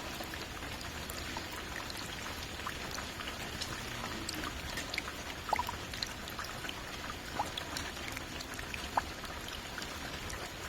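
Rain falling: a steady hiss with many separate drops heard, and a few louder drops about halfway through and near the end.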